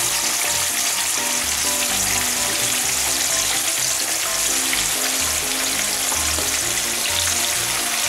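Chicken wings sizzling steadily in hot frying oil as more are laid into the pan. Background music with a bass line plays over it.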